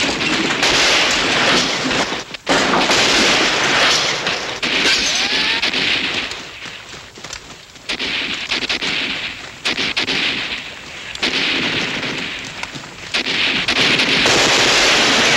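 Battle gunfire from rifles and automatic weapons, firing in long overlapping bursts that ease off a few times and pick up again.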